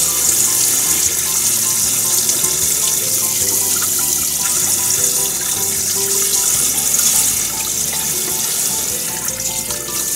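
Kitchen tap running into a stainless steel bowl in the sink, the water splashing as hands rub and rinse fish pieces under the stream.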